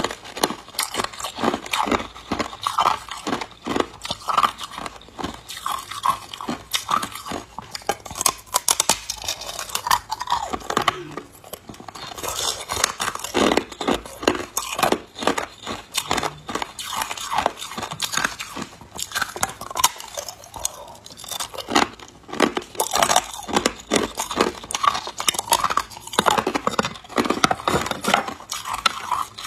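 A person crunching and chewing hard ice cubes: a quick, continuous run of crisp cracks, with a couple of brief pauses.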